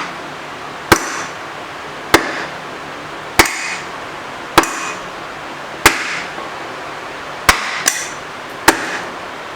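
Four-pound sledgehammer blows driving the rusted-in tailstock of a Monarch 10EE lathe along its ways, about one blow every second and a bit, each with a brief metallic ring. There are eight strikes, with a quick double near the end.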